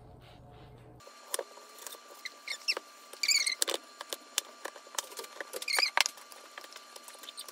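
A chef's knife cutting through a peeled mango: scattered sharp knocks and taps as the blade hits the board, with short high squeaks among them, the loudest coming a few seconds in.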